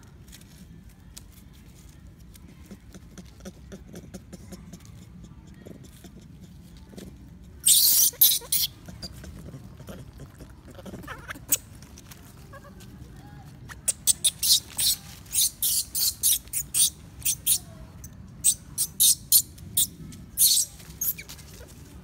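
Long-tailed macaque giving shrill, high-pitched squeals in short bursts: a few about eight seconds in, then a rapid run of about two a second near the end.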